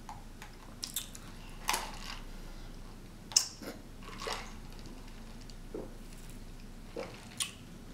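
Drink sipped through a straw from a plastic cup: a handful of short, wet sucking sounds at irregular intervals.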